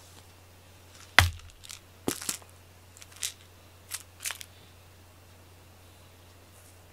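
A sharp knock about a second in, then a run of short scratchy, rustling clicks as a cat-teaser toy on a string is jiggled and flicked about.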